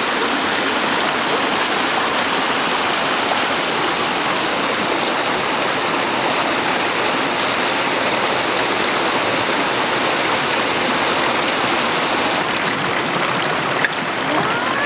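Steady rushing of a shallow stream running over rocks, with a single sharp knock near the end.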